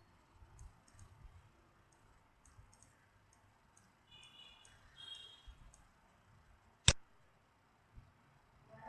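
Computer mouse clicking: a run of faint light clicks, then one sharp, loud click about seven seconds in. A brief faint high chirp sounds around the middle.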